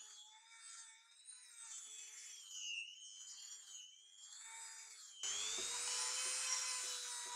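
High-speed rotary tool with a small abrasive attachment grinding a spring-steel cleaver blade: a steady motor whine that sags in pitch as the abrasive bites, with gritty bursts of grinding. About five seconds in it turns suddenly louder and more continuous.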